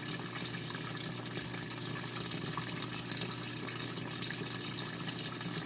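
Brastemp Clean 5 kg washing machine filling with water: a steady gush of water pouring into the tub, with a low steady hum underneath.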